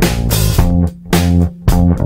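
Background music: bass and guitar over a steady beat.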